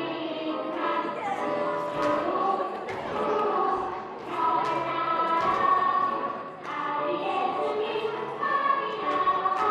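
A choir of young children singing a Christmas song, with a few short thumps.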